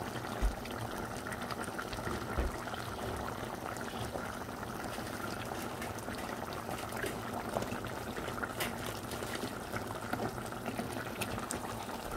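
Curry simmering in a pan: a steady bubbling with scattered small pops.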